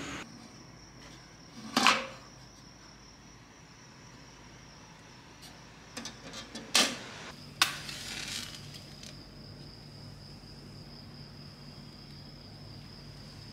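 A cricket trilling steadily, high and thin. Over it come a few knocks and clicks of a metal-and-glass lantern being handled and its glass door shut, the loudest knocks about two seconds in and again about seven seconds in.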